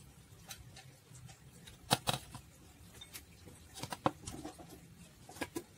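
A clear plastic pipe being handled and set down on a tabletop: a few short knocks (two about two seconds in, one about four seconds in, a pair near the end) with light rubbing between them.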